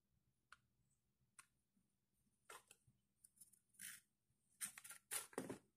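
A few faint clicks and small rattles of a plastic tripod head and its aluminium leg being handled, coming more often and louder near the end.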